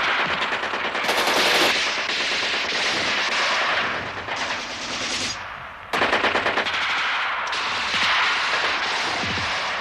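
Battle gunfire: rapid machine-gun bursts mixed with rifle shots, dense and continuous. It thins out briefly about five and a half seconds in, then starts up again.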